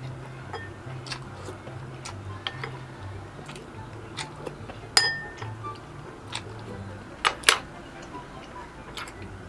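Eating utensils clinking against dishes: scattered light clicks, a ringing clink about halfway through and a sharp double clink near the end, over soft background music with a steady bass line.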